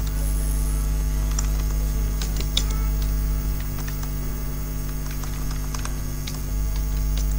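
Steady electrical mains hum with irregular computer keyboard key clicks as a name is typed into a text field.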